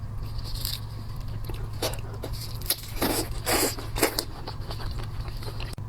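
Close-up eating sounds: a few short crackly bites and wet chewing noises, the loudest about three to four seconds in, over a steady low hum.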